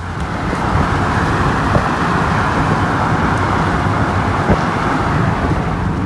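Car travelling at highway speed: a steady, loud rush of road and wind noise, with a couple of faint knocks.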